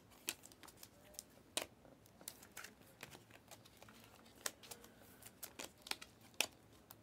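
Stack of glossy Panini Prizm basketball cards being flipped through by hand one at a time: irregular light clicks and rustles as each card slides off the stack.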